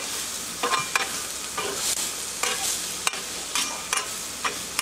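Diced zucchini, squash and onions sizzling on a Blackstone flat-top griddle, with a metal spatula scraping and clicking against the steel cooktop about eight times as the vegetables are pushed around.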